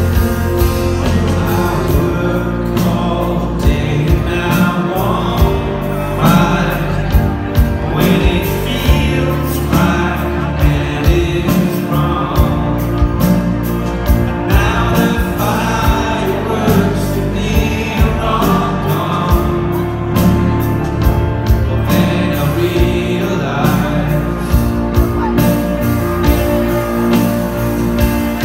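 Rock band playing live: a male lead singer sings over bass guitar, electric guitar and a steady drum beat, heard from within the audience.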